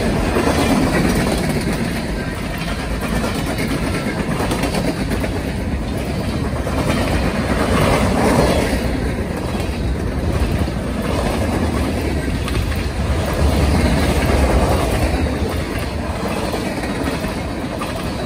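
Freight train passing close by: loaded tank cars and covered hoppers rolling on the rails in a steady rumble and rattle of wheels and couplings, swelling a few times as cars go by.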